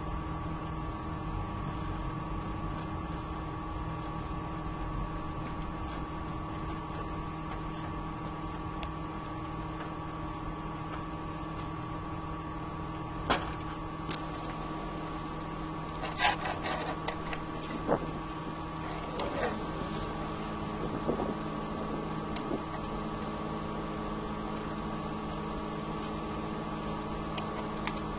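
A steady electrical-sounding hum with several fixed tones, with a few sharp clicks and knocks about halfway through and a small cluster of them soon after.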